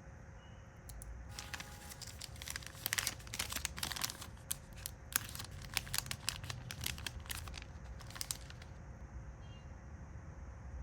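Packaging material crinkling and rustling in a dense run of crackles as an order is wrapped by hand. It starts about a second in and stops shortly before the end.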